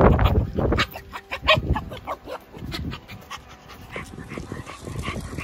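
A Shiba Inu panting excitedly, with a loud low rumble in the first second.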